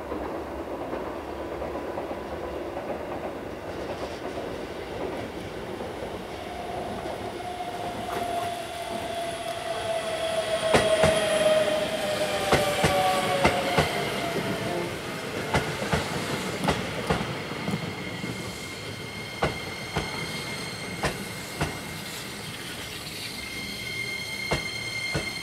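Keihan 10000 series electric train running slowly over the pointwork as it passes: a rumble that swells as it goes by, a slightly falling squeal from the wheels midway, and a run of sharp wheel clacks over the rail crossings. Near the end a high steady squeal sets in.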